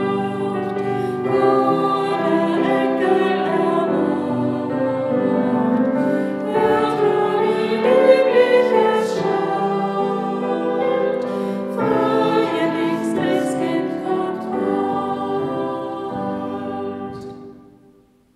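Choral music: a choir singing sustained notes, fading out near the end.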